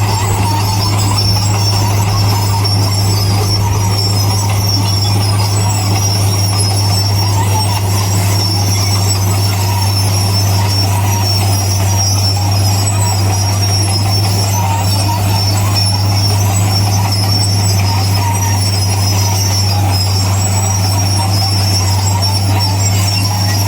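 Bulldozer's diesel engine running steadily with a constant low drone, with a high-pitched squeal from the steel tracks over it.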